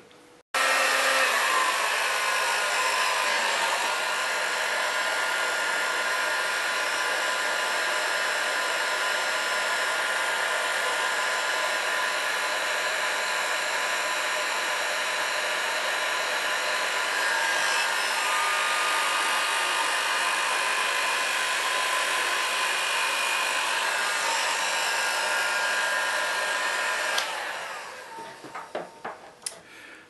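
Hot air gun blowing steadily while it shrinks heat-shrink tubing, with a fan whine over the rushing air. It comes on abruptly about half a second in and is switched off a few seconds before the end.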